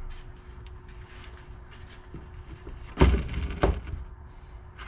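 Two loud knocks about half a second apart, about three seconds in, over a faint steady hum.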